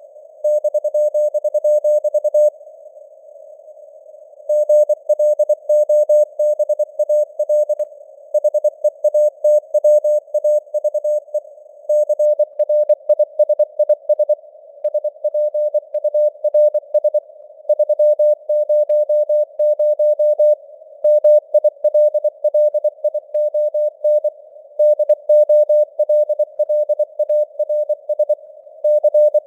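Morse code sent at 24 words per minute as a single pitched tone keyed on and off in quick dots and dashes, over simulated radio receiver hiss with fading signal strength. A pause of about two seconds falls between words shortly after the start.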